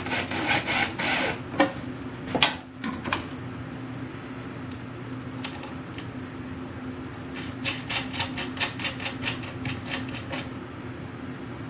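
Light clicks and taps of small tools and screws being handled while the chest is reassembled, with a quick run of clicks in the last few seconds, over a steady low hum.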